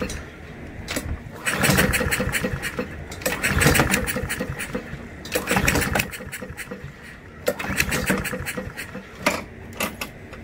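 Honda GCV160 lawnmower engine being pull-started with the recoil starter several times, each pull a short burst of cranking with quieter pauses between, and no steady running. The engine fails to start, which the owner suspects may be the automatic choke not working.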